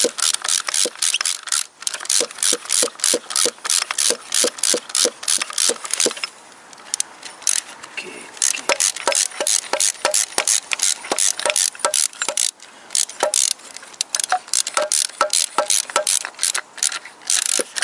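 Hand ratchet wrench clicking rapidly as a bolt is tightened, about four clicks a second, with a pause of a couple of seconds partway through before the ratcheting resumes.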